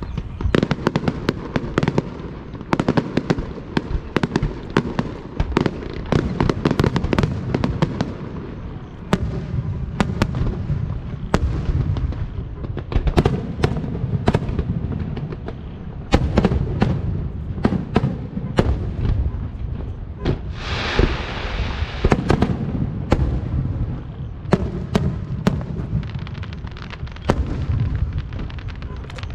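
Aerial fireworks display: a dense barrage of shell bursts, many sharp bangs over a continuous low rumble, with a spell of hissing about two-thirds of the way through.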